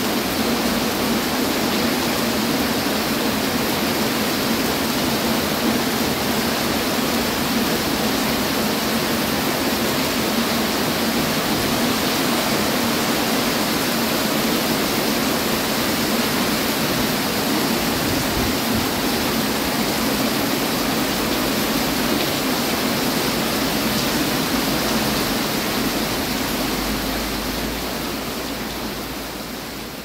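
Rain falling as a steady, even hiss, fading out over the last few seconds.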